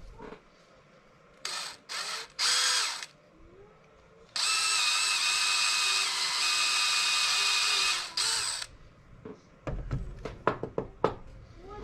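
Electric drill triggered in three short bursts, then held running at a steady speed for about four seconds while boring a hole in a pen blank. A series of sharp clicks and knocks follows near the end.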